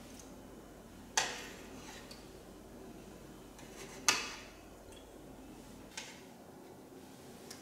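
A metal ladle knocking sharply against a baking dish twice, about three seconds apart, each knock ringing briefly, with a lighter knock near the end.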